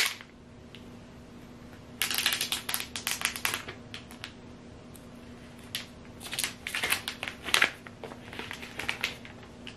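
Clear plastic wrap being peeled and torn off a new iPhone box, crinkling in quick crackles. The crackling comes in two spells: about two seconds in, then again from about six to nine seconds.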